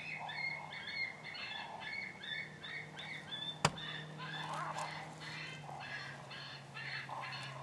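Repeated short calls in rapid series, like a bird's calls, going on throughout, with a single sharp click about three and a half seconds in.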